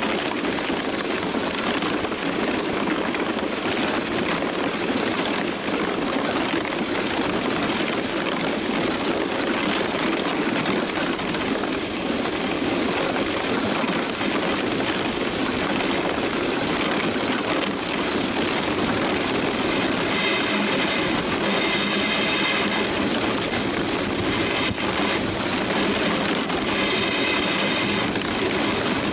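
DN iceboat running fast over the ice at about 35–47 km/h: a steady rushing noise of the runners on the ice and the wind. About two-thirds through, and again near the end, a high ringing whine comes in for a few seconds.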